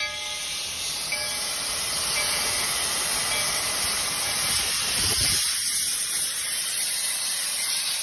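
A 3 ft narrow-gauge steam locomotive venting steam with a loud, steady hiss from low beside its cylinders. A brief low rumble comes about five seconds in.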